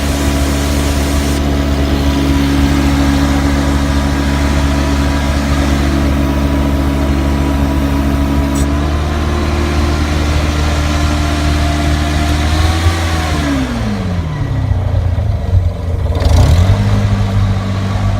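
Prochem Everest HP truckmount carpet-cleaning machine running steadily, engine and blower together. About 13 seconds in its revs fall away, then rise again about 16 seconds in and settle back into a steady run.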